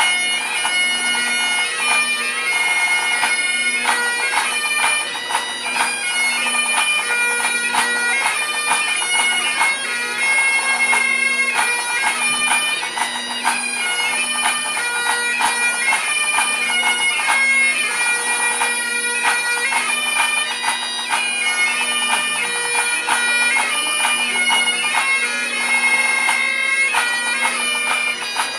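Several Great Highland bagpipes playing together in a 3/4 march set: a steady drone sounds under the chanter melody, with a snare drum accompanying.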